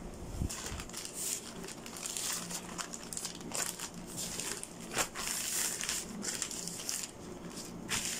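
Plastic mailer bags crinkling and rustling as they are handled and unfolded, with a few sharper crackles.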